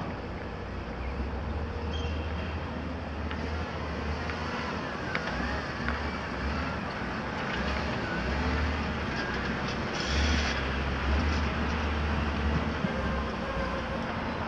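Volvo EC300 excavator's diesel engine running under load, its deep hum rising and easing as the machine works, with metallic knocks and a wavering squeal from the moving machine. A short hiss comes about ten seconds in.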